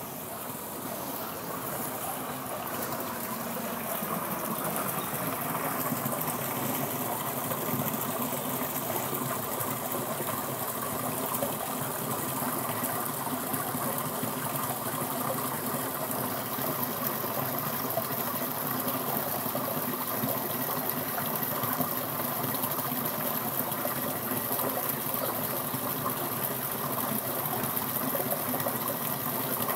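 River water rushing steadily, getting louder over the first few seconds.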